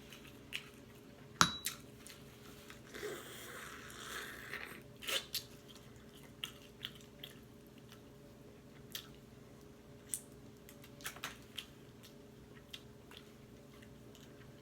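A person chewing and biting seafood close to the microphone: scattered small crunches and wet mouth clicks, with one sharp, louder click about a second and a half in.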